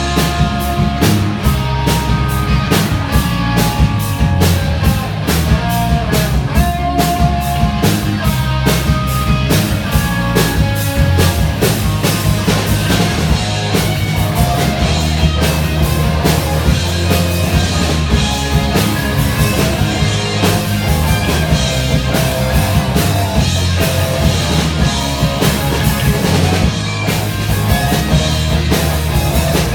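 Instrumental rock music with a driving drum kit beat, bass and guitar.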